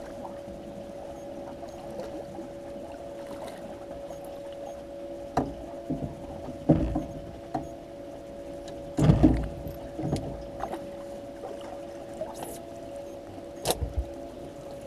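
Knocks and thumps on a boat while a hooked channel catfish is reeled in and netted, the loudest about seven and nine seconds in, with a sharp knock near the end. A steady electric hum runs underneath.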